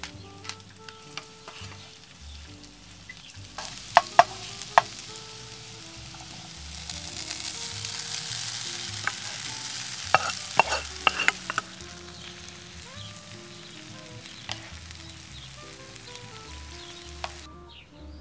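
Chicken and red pepper strips sizzling in a frying pan on a camping stove while being stirred, with sharp clacks of a utensil against the pan. The sizzle swells as noodles are tipped in, then stops abruptly near the end.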